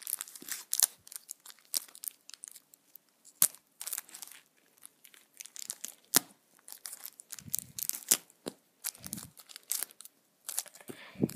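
Clear plastic bag crinkling and rustling in irregular bursts as a model plane's small tail stabilizer is unwrapped from it, with a couple of sharper crackles.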